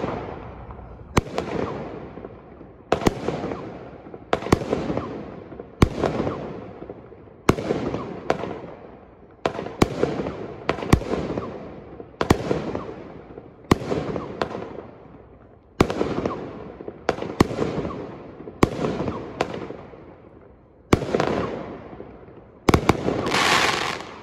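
Smoking Alien 'Jinkies' 200-gram 16-shot firework cake firing its shots in sequence, about one every second and a half. Each shot gives sharp reports as it launches and breaks, then a fading crackle. Near the end the last shots bring a louder, longer crackle of white glitter.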